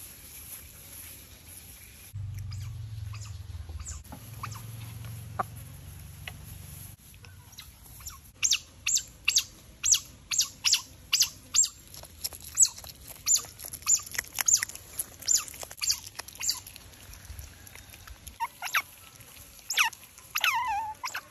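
Otters feeding on raw fish, making a run of short, sharp high chirps at about two a second through the middle, and a falling chirp near the end.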